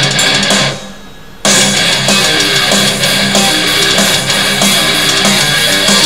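Rock music with electric guitar and drums playing through the Xqisit xqS10 portable Bluetooth speaker as a sound test. About a second in it drops away briefly, then comes back loud.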